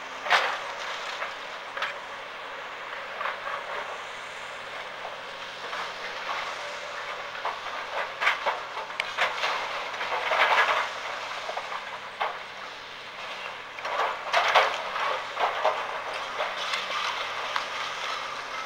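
A house being pulled down by an excavator: masonry and debris crashing and clattering in bursts, the biggest about 10 and 14 seconds in, over a steady rumbling hiss.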